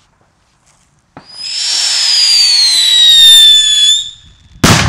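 Ground-lit whistling firework: a shrill whistle over a hiss starts about a second in and sinks slowly in pitch for about three seconds before cutting off. A single sharp bang follows near the end.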